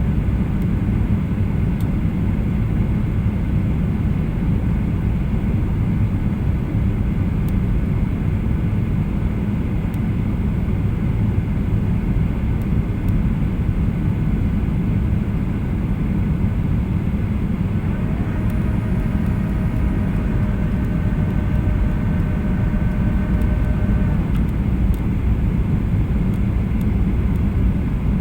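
Steady low rumble of engine and air noise inside the cabin of a Boeing 737-800. From about 18 s to 24 s a faint set of steady tones sounds over it and then stops.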